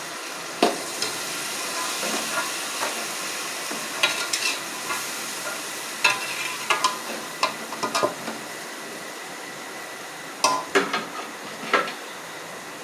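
Boiled chickpeas and spiced onion masala sizzling in a frying pot while a spoon stirs them, with a steady frying hiss and irregular clinks and scrapes of the spoon against the pot.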